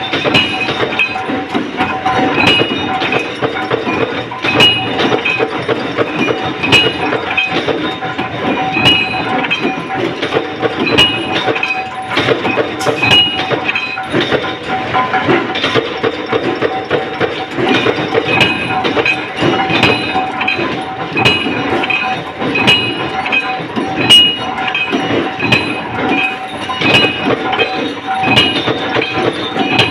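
Large mechanical punch press running: sharp metallic clanks about every two seconds over a steady machine hum, as it stamps out metal rings.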